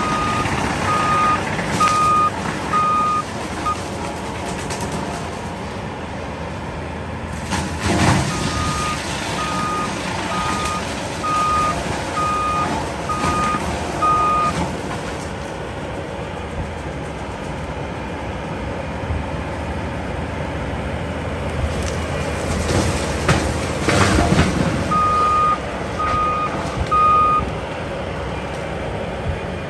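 Bobcat compact track loader running with a disc mulcher on the front, its backup alarm beeping in three runs of about three beeps every two seconds as it reverses. Loud crashes break through about eight seconds in and again past twenty seconds as brush is chewed up.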